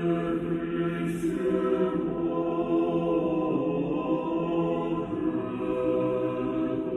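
Choir singing a slow chant in long, sustained chords as soundtrack music.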